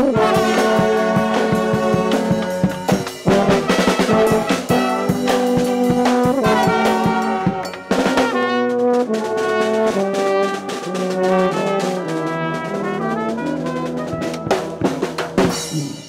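Brass street band playing live: sousaphone, trombones and trumpet over a drum kit. The drumming thins out about halfway through while the horns carry on, and the tune stops at the very end.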